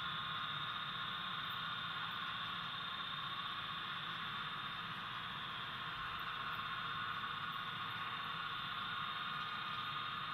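Steady, even background hiss with no distinct events standing out.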